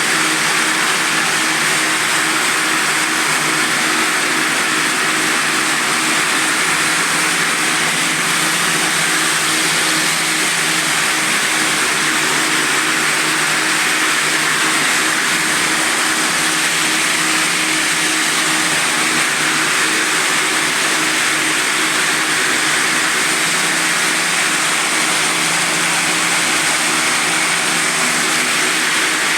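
Quadro floor sanding machine running at 600 rpm with coarse grit-70 diamond sanding discs, grinding down an old mosaic parquet floor. It makes a steady motor hum under a constant grinding hiss.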